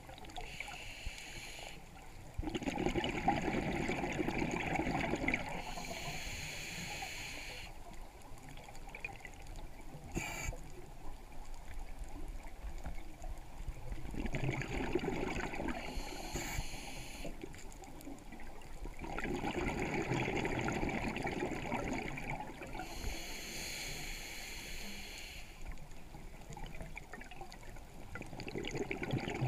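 Scuba diver breathing through a regulator underwater: bubbling rushes of exhaled bubbles alternating with the hiss of each inhalation, over three slow breaths.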